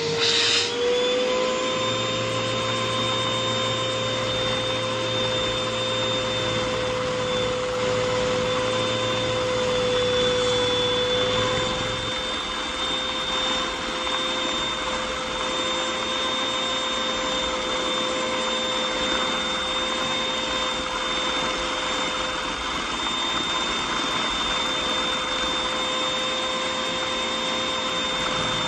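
Vacuum cleaner running with a steady whine over a rushing hiss, its suction driving a LEGO DOHC vacuum engine. A low hum underneath stops about twelve seconds in.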